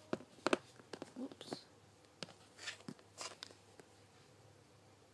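Scattered light clicks and taps of a hand tool and fingers working a small polymer clay figure on a tabletop, a dozen or so short sharp handling noises at uneven intervals.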